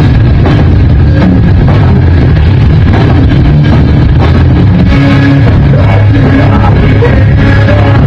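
Live rock band playing loud, with electric guitar and drum kit.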